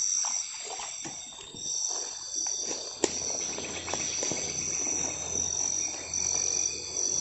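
Night insects chirring steadily in a high, continuous drone, with faint rustling and handling knocks and one sharp click about three seconds in.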